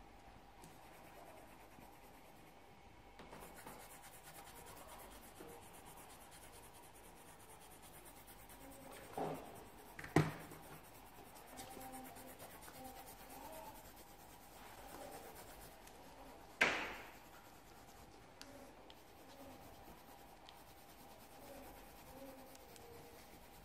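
Coloured pencil rubbing and scratching on paper as a picture is coloured in, with three sharp taps, the loudest about ten seconds in.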